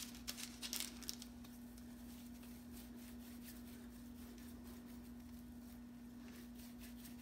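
A few soft pats and rustles of hands handling bread dough on parchment paper in the first second or so, then little but a faint steady low hum.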